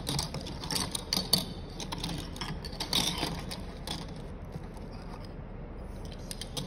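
Hands handling plastic packaging and small parts: a run of scattered clicks and crinkles that thins out about four seconds in.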